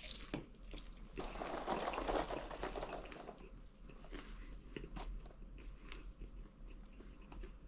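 Popcorn being chewed fast by a person eating with their mouth full, with a stream of crisp crunches, busiest from about one to three seconds in.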